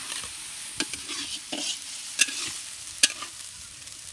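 Onion, garlic and ginger masala sizzling in oil in a kadai while a flat metal spatula stirs it, with four sharp scrapes and knocks of the spatula against the pan, the loudest about three seconds in.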